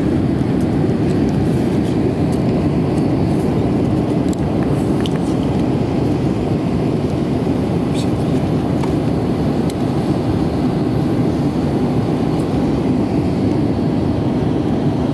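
Airbus A350's cabin during climb-out after takeoff: the steady low roar of its Rolls-Royce Trent XWB engines and the rushing airflow, heard from a window seat over the wing.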